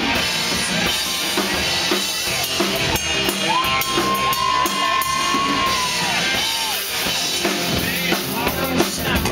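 Live band playing rock music, with a drum kit keeping a steady beat. Through the middle one long note is held and then bends down at its end.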